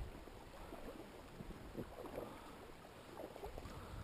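Faint shallow river water running over stones, with small irregular splashes and gurgles.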